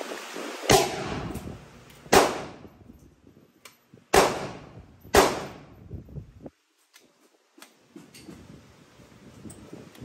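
Four 9mm shots from a Hi-Point 995 carbine, fired at uneven intervals of one to two seconds, each ringing out in the room, followed by a few faint clicks.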